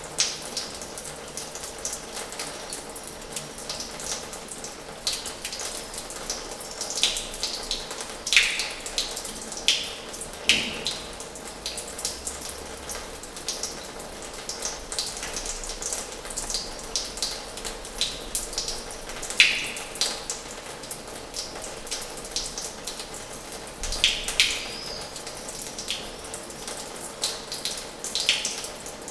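Water running from the tap of an old washhouse into its basin: a steady flow with irregular splashes and plinking drops, a few of them falling quickly in pitch.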